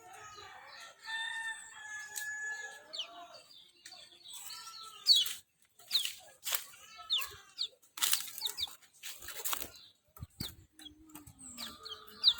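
Recorded birdsong of kecial kuning: busy short chirps and quick, sharp falling whistles, with a few bursts of rustling noise. A lower clucking call, like a chicken's, sounds near the end.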